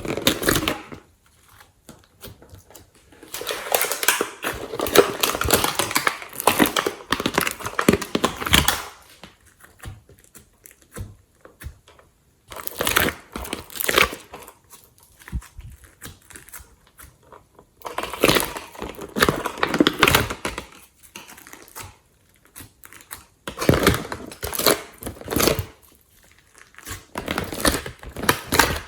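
Hands squishing and stretching glossy slime, giving sticky crackling and popping in several bouts of a few seconds, with short pauses between.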